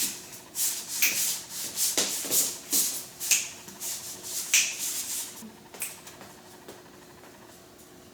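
Irregular rubbing and scuffing noises, a dozen or so quick scrapes over about six seconds, then dying away to a faint steady hum.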